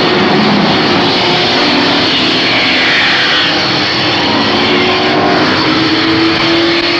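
Several race truck engines running at speed around a short oval track, their notes overlapping and rising and falling as they pass; one engine note climbs steadily over the last couple of seconds.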